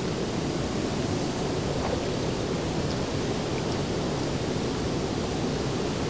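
Steady rushing of the Tat Kai waterfall.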